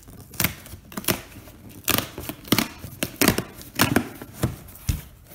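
Packing tape ripped off a cardboard shipping box in a series of short, sharp tears as the box top is pulled open.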